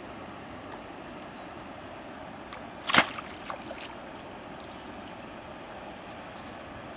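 A sudden sharp splash about three seconds in as the fishing rod is jerked up to strike a fish, followed by a few smaller splashes, over a steady background hiss.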